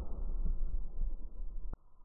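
Muffled low rumble trailing off after a PCP air rifle shot, cutting off abruptly near the end.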